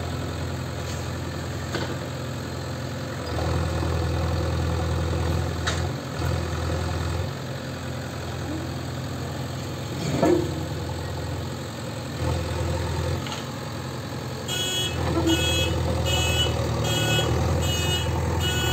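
JCB 3DX backhoe loader's diesel engine running, its note swelling and falling with load as the backhoe works. About ten seconds in there is one sharp knock, the loudest moment. From near three-quarters through, the reversing alarm beeps about twice a second as the machine backs up.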